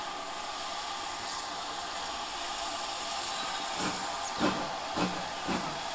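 Steam locomotive letting off a steady hiss of steam, joined about two-thirds of the way in by a slow run of exhaust beats, about two a second.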